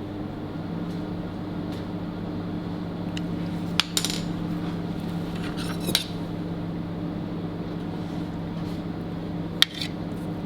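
A few sharp clinks of utensils against dishes during plating, about four and six seconds in and again near the end, each ringing briefly, over a steady low machine hum.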